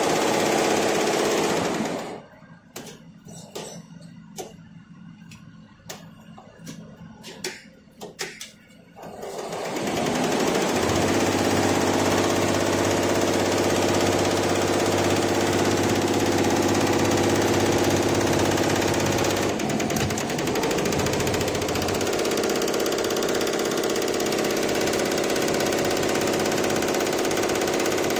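Multi-head Lejia high-speed computerized embroidery machine stitching, a fast, steady mechanical clatter of many needle heads. About two seconds in it goes quiet for some seven seconds, leaving only scattered clicks, then starts up again and runs steadily.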